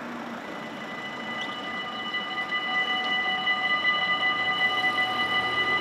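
Dutch level-crossing warning bell ringing with a steady high-pitched tone, growing louder over the first two seconds. The ringing means the crossing has activated for an approaching train.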